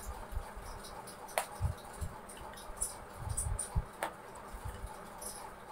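Light taps and clicks of a clothes-peg tong's steel spoon tips against plates as orange segments are picked up and set down, with two sharper clicks, about a second and a half in and about four seconds in.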